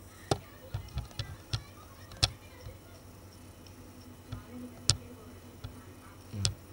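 Computer mouse clicking, about ten sharp, irregular clicks, the loudest about two and five seconds in.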